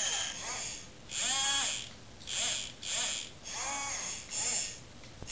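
Robot arm servo motors whining in a series of about six short bursts, each rising and then falling in pitch as a joint is driven and stopped by joystick.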